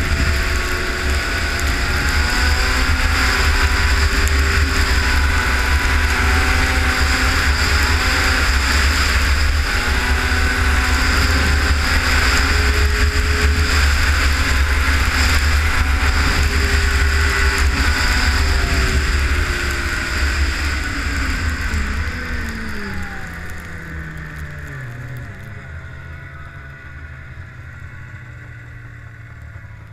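Arctic Cat ZR 500 snowmobile's two-stroke engine running at speed under throttle, with rushing wind and track noise. About twenty seconds in the throttle is let off and the engine pitch falls steadily to a low idle as the sled slows.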